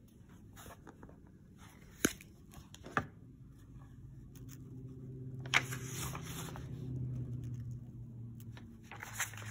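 A hardcover picture book being opened and its pages turned: two sharp clicks about two and three seconds in, then paper rustling as the pages turn, from about five and a half seconds in and again near the end. A faint low hum sits underneath in the middle.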